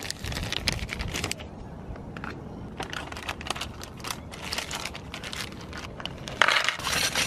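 Plastic packaging of fishing lures and hooks crinkling and rustling in a hand, with scattered light plastic clicks; a longer, louder stretch of crinkling comes near the end.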